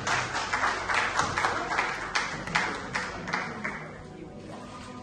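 Congregation clapping, the applause fading out about three and a half seconds in.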